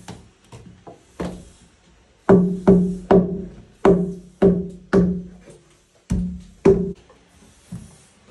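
Hand hammer striking at the base of an upright log: a few light taps, then about eight hard blows in two groups, each with a short ringing tone.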